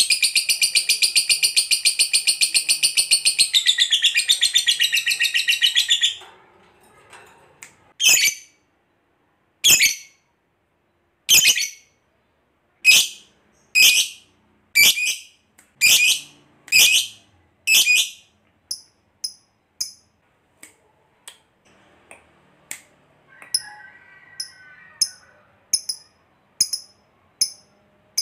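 Lovebird giving a long, very rapid chattering trill (the 'ngekek panjang') that breaks off about six seconds in. Then comes a run of loud, sharp single calls about a second apart, then softer, shorter high chirps about twice a second.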